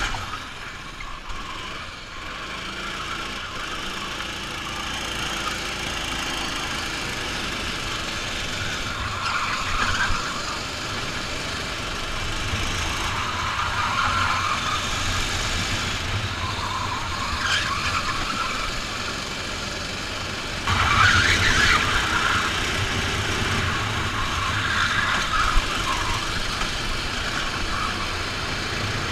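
Rental kart engine running flat out, heard from on board, its note swelling and easing again and again through the corners, louder from about two thirds of the way through.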